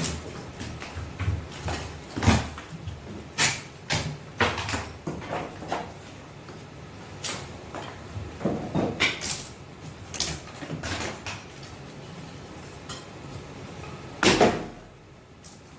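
Wooden lath slats being pried and pulled off a wall: irregular cracks, knocks and clatter of wood and broken plaster, with a louder double clatter near the end.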